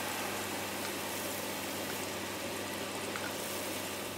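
Prawns sizzling steadily in hot oil in a wok.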